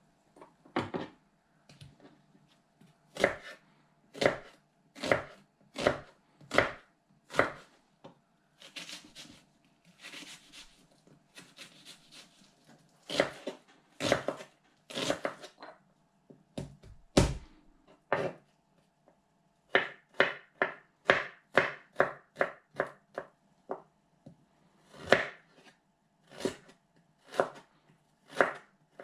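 Chef's knife chopping vegetables on a wooden cutting board: separate knocks of the blade on the board, mostly about a second apart, with a quicker run of rapid chops about two-thirds of the way through and a softer, scratchy stretch in the middle.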